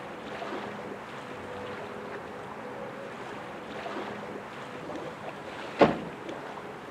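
Steady outdoor wind noise under a storm sky, with a faint on-and-off hum, and one sharp, loud knock near the end.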